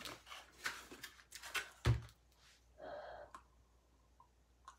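A breath huffed into cupped hands to check its smell after brushing, one short airy exhale about three seconds in. Before it come a few soft clicks and a heavier thump near two seconds, from hands and handling.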